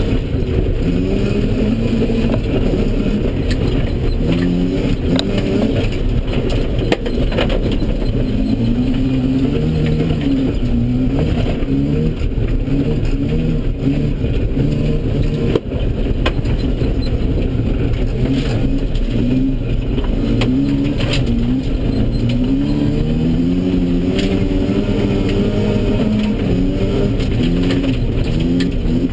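Mazda RX-7's 13B rotary engine, heard from inside the cabin, revving up and dropping back over and over through gear changes and throttle lifts under hard driving on dirt. Scattered clicks and knocks come through the car's body.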